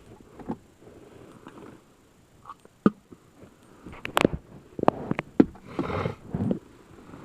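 Scattered clicks and knocks with a little rustling: things being handled close to the microphone. The sharpest knock comes about four seconds in.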